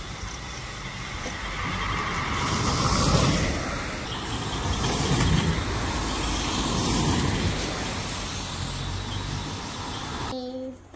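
Cars driving past one after another on a wet road, their engine and tyre noise swelling and fading as each goes by, about three times. The sound cuts off suddenly near the end.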